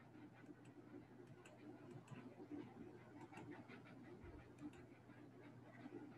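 Near silence: faint room tone with a few faint, irregular ticks.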